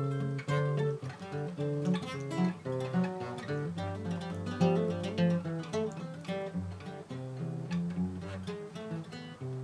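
Background music: acoustic guitar playing, notes plucked and strummed in a steady flow.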